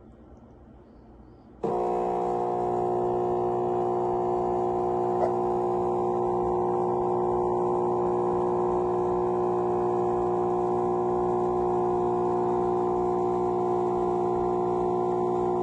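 The Chefman espresso machine's 15-bar pump runs with a steady buzzing hum. It switches on abruptly about a second and a half in and holds unchanged.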